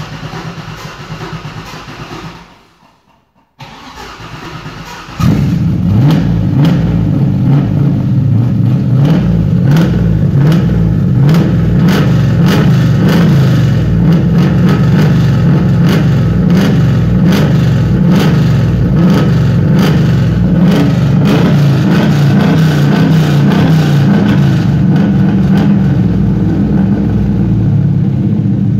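1982 Pontiac Trans Am's carbureted LS1 V8 with a Torquer V3 cam, started for the first time on a new build. The starter cranks, stops briefly, cranks again, and the engine catches about five seconds in. It then runs loudly and steadily through a stainless exhaust with a Spintech Super Pro Street muffler.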